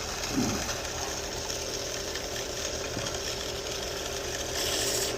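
Powered knife-sharpening machine running steadily, a motor hum under a high hiss, as a pocket knife blade is stropped on it, the final honing step of the sharpening; the hiss swells near the end as the blade presses on.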